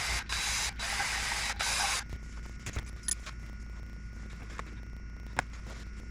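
A pressurised spray hissing in several short bursts over the first two seconds, followed by a few light clicks and taps of small metal parts.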